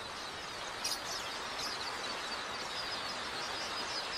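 A dense, steady chorus of many small birds chirping and chattering together, as from a large flock.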